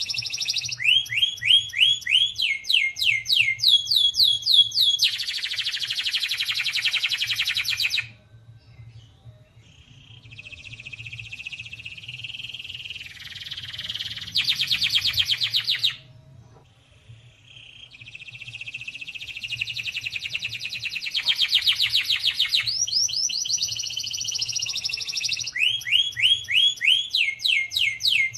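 Domestic canary singing a long song in phrases: rows of quick downward-sweeping notes alternating with fast, buzzing rolled trills. Twice the song drops to a softer passage before building up again.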